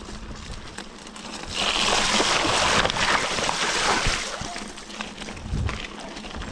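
Mountain bike tyres splashing through a shallow puddle on a stony trail, the spray loudest from about a second and a half in until about four seconds in. Before and after it, the tyres rattle and click over loose stones.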